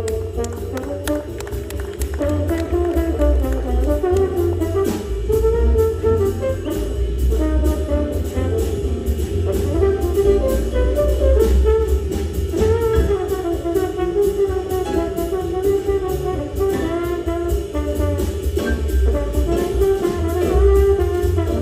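Jazz big band playing live: saxophones, trombones and trumpets over piano, bass and drum kit, the ensemble playing together steadily.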